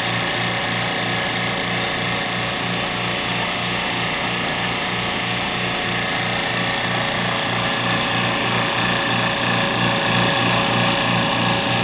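A small electric motor-driven machine running steadily, with a fast, even pulsing throughout.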